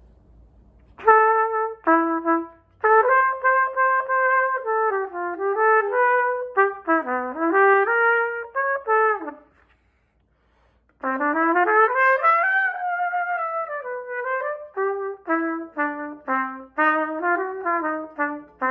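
1957 Olds Special trumpet played solo: a melodic line of separate notes that moves up and down, in two phrases, starting about a second in with a short break in the middle.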